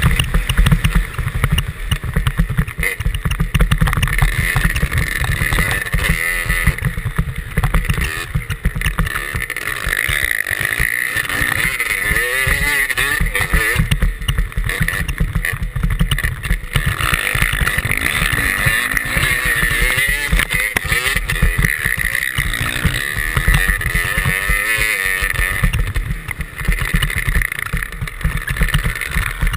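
Dirt-bike engine revving up and down as it tows a skier across snow, heard from the skier's end of the tow rope, with heavy wind buffeting on the microphone.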